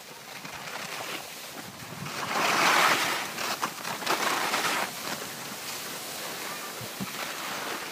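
Skis sliding and scraping over packed snow, with wind noise on the microphone; the scraping swells to its loudest from about two to five seconds in.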